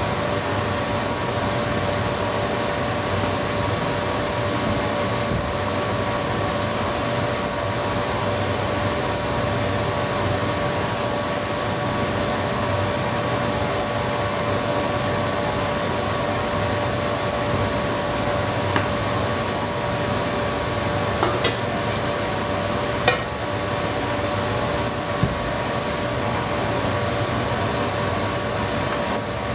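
Steady fan-like machine hum with a few steady tones through it. In the second half come a handful of light knocks of a spatula and batter against metal cake pans.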